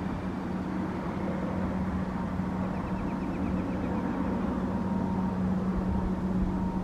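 Steady distant rumble with a constant low hum running through it, and a brief run of faint high chirps about three seconds in.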